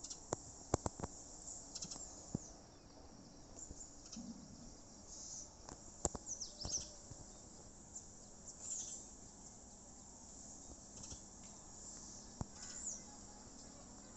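Birds chirping outdoors: short, high calls every couple of seconds, some falling in pitch, over a faint steady high insect hum. A few sharp clicks come in the first couple of seconds.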